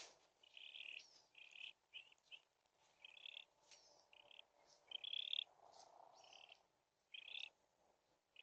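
Birds giving short, high chirping calls, about a dozen in a loose series, with a few fainter rising notes between them.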